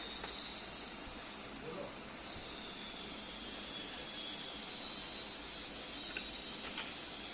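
Steady background hiss with a thin high-pitched whine running through it, and a few faint ticks about four, six and seven seconds in.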